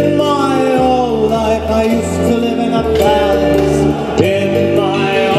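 Music with a sung voice gliding over low held notes that change about once a second.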